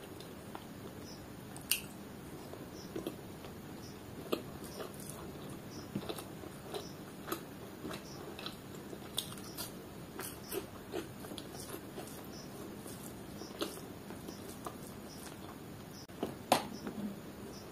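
Close-miked eating sounds from someone eating rice and curry by hand: chewing with small wet mouth clicks and smacks, and fingers squishing rice and gravy on the plate. Many short clicks come at irregular intervals, the loudest about two seconds in and a cluster near the end.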